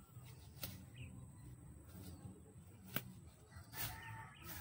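A chicken clucking briefly near the end, over a faint background with a few sharp clicks, the loudest about three seconds in.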